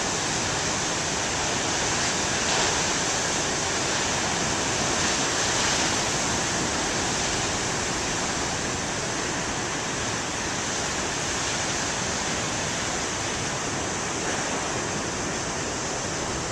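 Ocean surf from big waves breaking, a continuous wash of noise that swells slightly a couple of times.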